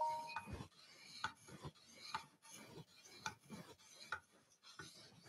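Faint, slow strokes of a 600-grit Edge Pro sharpening stone rubbing along a steel knife blade, about one a second. A short rising chime sounds right at the start.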